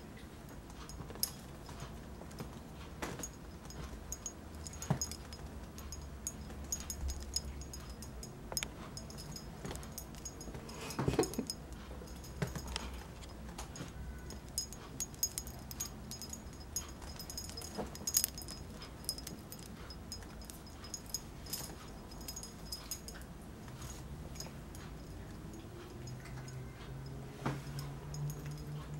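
Kittens playing with a feather wand toy on a cushion: scattered soft taps, scuffles and rustles as they pounce and bat at it, with a faint high ringing that comes and goes.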